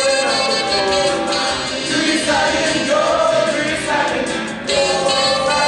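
Music: several voices singing long held notes together over a band backing.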